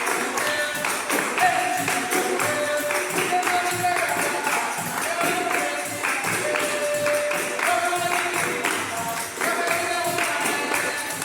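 Capoeira music: a berimbau and a tambourine-like pandeiro play a steady, driving rhythm. Held pitched notes alternate between two or three pitches over the beat.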